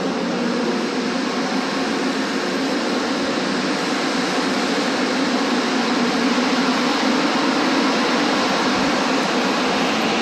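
Rubber-tyred Montreal Metro train running alongside the platform: a steady loud rush with a low hum.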